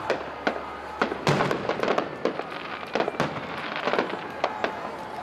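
Aerial fireworks going off in quick succession: a dense run of sharp bangs and pops, thickest from about a second in.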